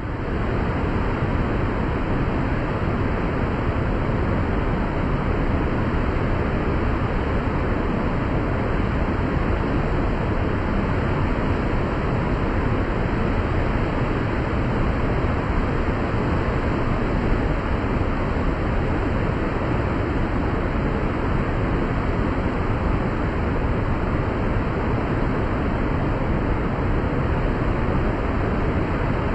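Whitewater rapids below a dam's spillway: a steady, even rushing of heavy water over rocks.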